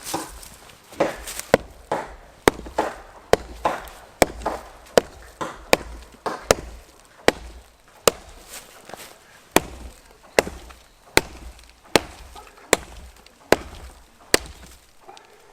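Firewood being chopped: a long, steady series of sharp wooden strikes, about two a second at first and then slowing to a little more than one a second.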